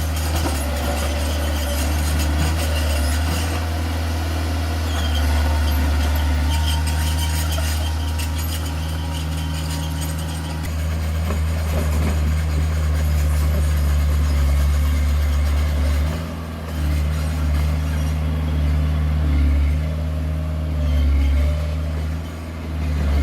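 Heavy diesel engine of earthmoving machinery running steadily with a deep, low drone. It eases off briefly about 16 seconds in and again near the end.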